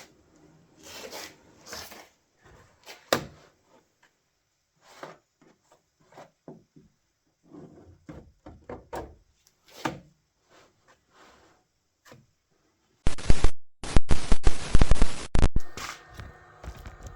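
Workshop handling sounds: scattered knocks and clicks, then a loud rasping noise lasting about two and a half seconds near the end.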